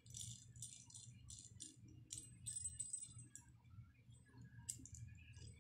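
Faint, irregular metal clicks and light rattling from miniature die-cast toy cap-gun cannons being handled. No cap is fired.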